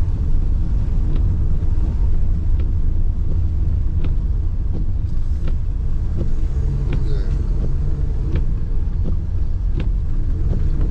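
Car driving, heard from inside the cabin: a steady low rumble of engine and road, with scattered light ticks.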